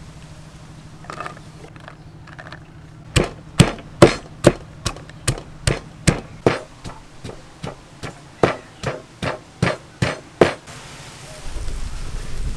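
Pestle pounding young tamarind pods in a mortar: a steady run of dull thuds, about two and a half strokes a second, starting about three seconds in and stopping about ten and a half seconds in.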